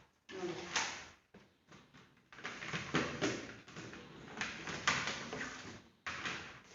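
Plastic fridge organizer boxes and their packaging being handled and unwrapped: irregular rustling and light plastic clacks, with a short pause about six seconds in.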